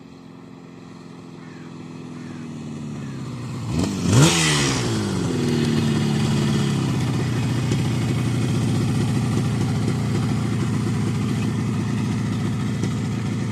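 1975 Yamaha RD200's two-stroke twin engine coming closer and slowing, getting louder as its pitch falls. About four seconds in the throttle is blipped in one sharp rev, then the engine settles to a steady idle.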